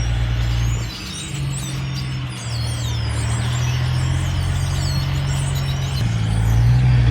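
A vehicle engine running steadily, its pitch stepping up about a second in and shifting again near the six-second mark, with birds chirping in the background.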